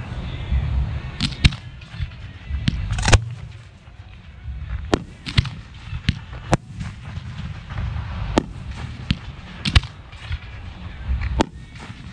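Professional 1.3G aerial firework shells firing from mortar racks and bursting: about a dozen sharp bangs at irregular intervals over a continuous low rumble.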